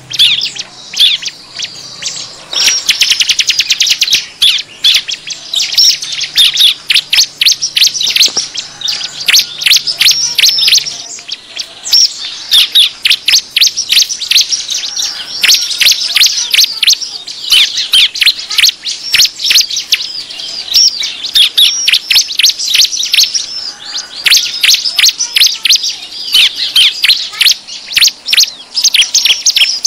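Bar-winged prinia (ciblek) calls: a dense, agitated run of sharp, high chirps, many per second, with a fast trill about three seconds in. This is the kind of noisy 'ribut' call played as a lure to draw wild prinias in.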